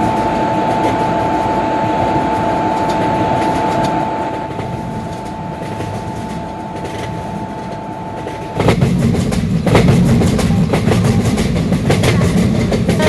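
Passenger train running on the rails: a steady rumble with a thin steady whine and clicks of wheels over rail joints. About two-thirds of the way through the sound turns abruptly louder and lower, with denser clicking.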